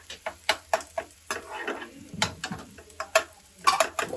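Slotted metal spatula scraping and knocking against a metal frying pan while stirring chopped onions, in quick, irregular clicks and scrapes over a light sizzle of the onions frying in oil.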